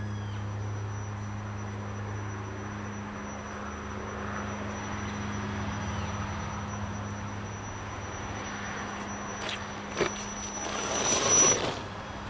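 Scale RC crawler (Axial SCX10 Jeep Rubicon) driving slowly over wooden bridge planks, its electric motor and gears giving a steady high whine. There is a sharp knock about ten seconds in, and the noise grows to its loudest as the crawler comes close, just before the whine cuts off near the end.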